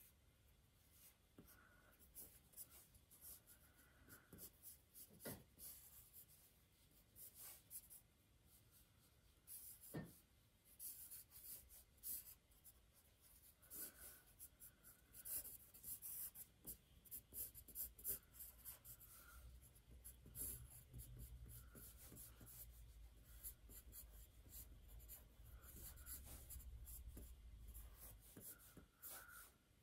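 Pen tip scratching across paper in many quick, irregular strokes, faint, as a dog is sketched rapidly.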